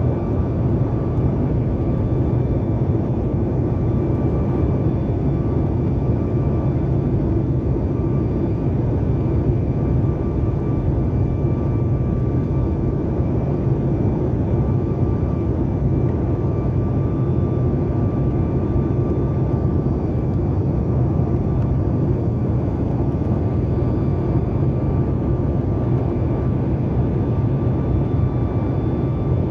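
Cabin noise in a Boeing 737 MAX 8 in flight: the steady low rumble of its CFM LEAP-1B turbofan engines and rushing air, with a faint steady whine running through it.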